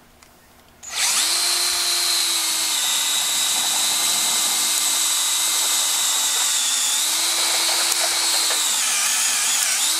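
DeWalt 18-volt cordless drill on low speed boring into a stainless steel tower tube, forced down by a ratchet strap acting as a makeshift drill press. It starts about a second in and runs with a steady whine, its pitch sagging briefly a few times under load, most near the end.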